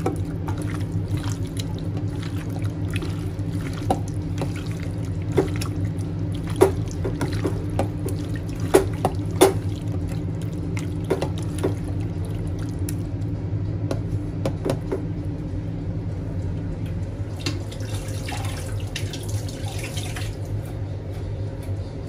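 Raw chicken being stirred through a wet yogurt-and-spice marinade: scattered wet squelches and clicks, over a steady low hum.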